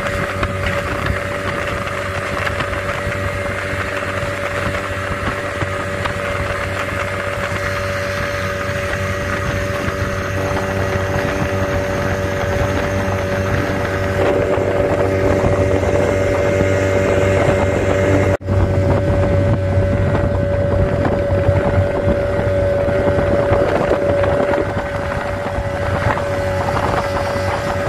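Small speedboat's outboard motor running steadily at cruising speed, a constant engine drone over the rush of water and wind on the microphone. It grows a little louder about halfway through, and the sound drops out for an instant about two-thirds of the way in.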